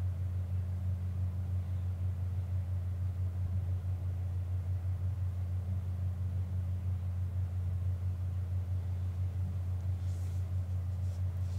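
A steady low machine hum runs on unchanged, with a second band about an octave above it. A few faint rustles come near the end, as old seat foam is torn off the springs by hand.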